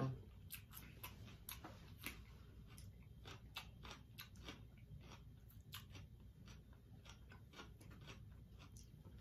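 Faint mouth sounds of people eating a seafood boil: chewing with irregular small smacking clicks, a few a second.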